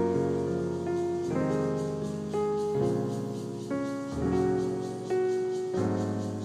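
Background music: solo piano playing a slow melody with chords, notes struck and left to ring.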